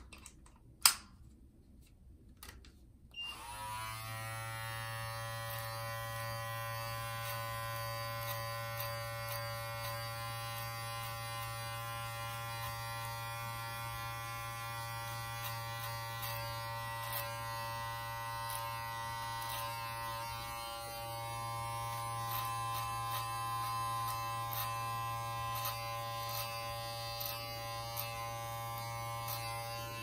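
A sharp click about a second in. Then a Brio Beardscape electric beard trimmer with a 6mm guard switches on about three seconds in and runs with a steady buzz as it is worked over the sideburns.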